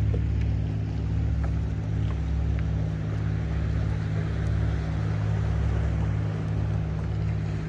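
A boat motor running at a steady low hum, even in pitch.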